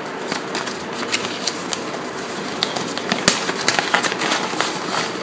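A paper envelope being handled and pulled open by hand: paper rustling and crinkling, with many small crisp crackles and one sharper snap a little past three seconds in.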